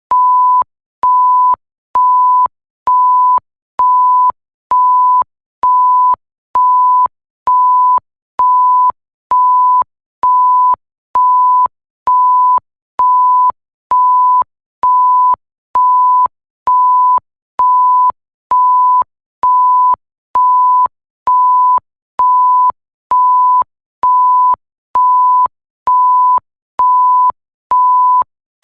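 Electronic bleep: a pure tone of about 1 kHz switching on and off about once a second, each beep roughly half a second long with a short silent gap, and a faint click as each beep starts and stops.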